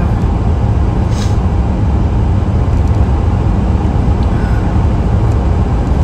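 Steady low rumble of vehicle road noise, with a short hiss about a second in.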